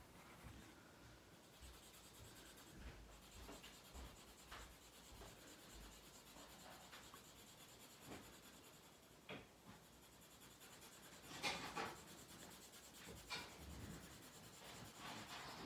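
Faint, soft scratching of a paper blending stump rubbing soft pastel into toned paper, in short irregular strokes, a few louder ones about eleven and thirteen seconds in.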